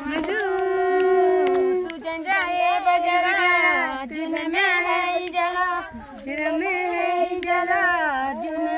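A woman's voice singing unaccompanied, with long held notes and sliding ornaments, in several phrases separated by short breaks.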